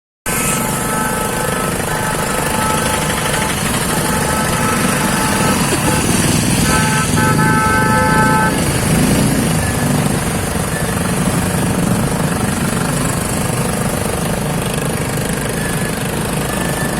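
Road traffic: vehicle engines running with a steady rumble, and a horn sounding for about two seconds near the middle.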